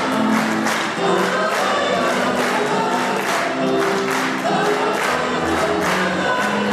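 Mixed choir of women's and men's voices singing together, holding long notes in several parts.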